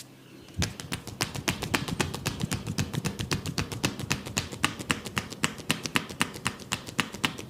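Barber's hands tapping rapidly on a head in a percussive head massage, a fast even run of sharp claps about five or six a second, starting about half a second in.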